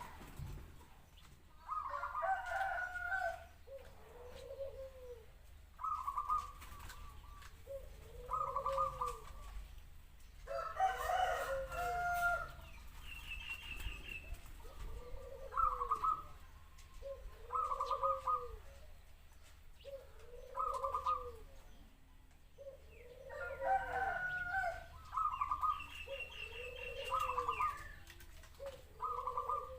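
Zebra dove cooing its staccato song over and over, a phrase about every two seconds. Twice, at about 11 and 24 seconds, a louder, fuller call from another bird overlaps it.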